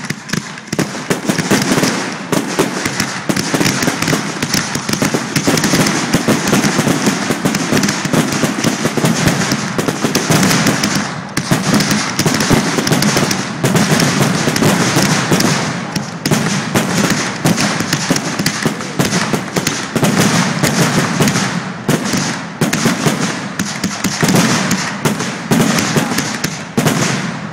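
Aerial fireworks going off in a dense, nonstop barrage of bangs and crackling shell bursts, with only brief lulls.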